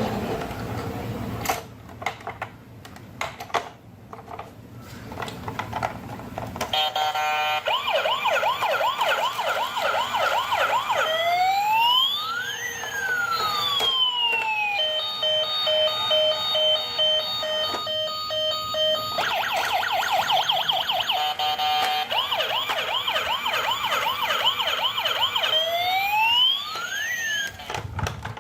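Emergency-vehicle siren sound effect, cycling through a fast warbling yelp, slow rising and falling wails, and a two-tone hi-lo pattern. A few knocks and a low rumble come before the siren starts, about seven seconds in.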